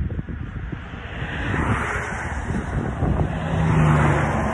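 Wind buffeting the microphone, with an engine hum coming in about three seconds in and growing louder as a motor passes.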